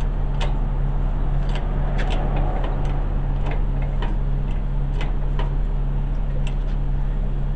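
A steady mechanical hum with scattered sharp metallic clicks and knocks, about one or two a second, as the engine is worked into its mounts.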